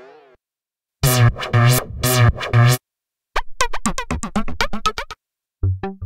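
u-he Diva software synthesizer presets being auditioned in turn. A fading tail gives way to a pulsing bass pattern about a second in, then after a short gap a quick run of short plucked notes, and near the end another rhythmic pattern begins.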